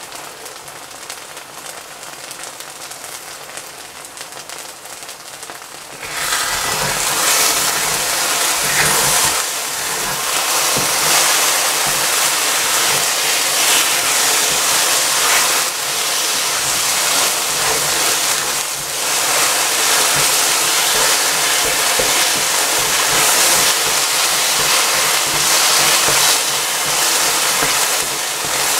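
Water heating in a pot on an electric stove: a steady hiss with bubbling that gets much louder about six seconds in.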